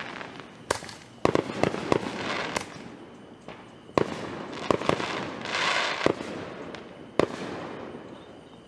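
Aerial fireworks bursting overhead: a string of sharp bangs at irregular intervals, with crackling between them and a brief hissing crackle near the middle.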